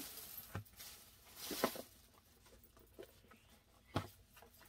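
Faint handling sounds, soft rustles and light taps as items are taken out and picked up, with a sharper knock about four seconds in.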